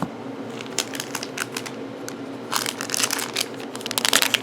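Trading cards and their pack being handled: a run of short rustles and crinkles, sparse at first and getting busier and louder over the last couple of seconds.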